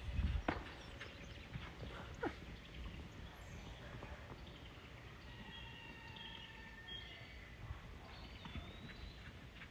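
A herd of horses trotting and cantering across a dirt paddock at a distance, heard as faint, dull hoofbeats over a low rumble. A low thump sounds right at the start.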